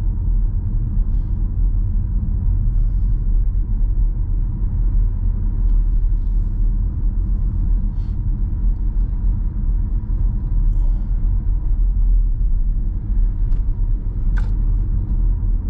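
Steady low rumble of a moving car heard from inside the cabin: engine and tyre road noise while driving at a steady pace, with a few faint clicks, the clearest shortly before the end.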